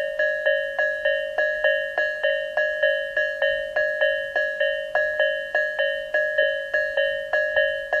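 Japanese railway level-crossing warning bell on the Tobu Isesaki Line, an electronic 'Isesaki-type' ding repeating evenly at about three strikes a second, each strike ringing briefly. This crossing's version sounds slightly lower in pitch and slower in tempo than the usual Isesaki sound.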